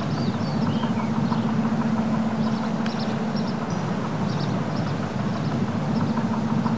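Outdoor ambience: a steady low hum under a wash of noise, with scattered short high chirps of small birds.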